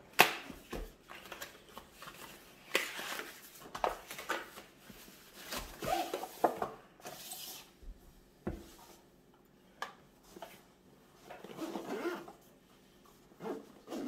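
Hands opening a cardboard product box and sliding a zippered camera carrying case out of it: intermittent rustling and scraping of packaging, with a few sharp clicks and knocks, the sharpest just after the start.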